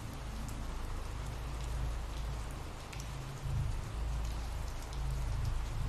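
Ambient rain recording: steady rainfall with scattered drop ticks over a low, slowly swelling rumble.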